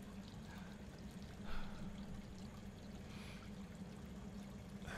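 Quiet room tone: a steady low hum under an even hiss, with a short soft breath-like sound about one and a half seconds in and a fainter one a little after three seconds.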